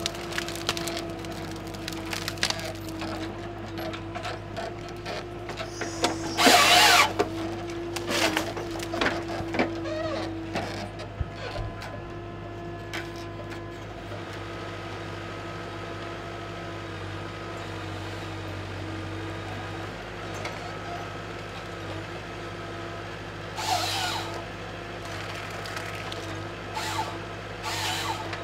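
Malwa 560H forest harvester running steadily while its Log Max 928 harvester head works a tree, with snapping and cracking of wood. Short loud bursts of noise from the head come about six and a half seconds in and again near 24 and 27 seconds.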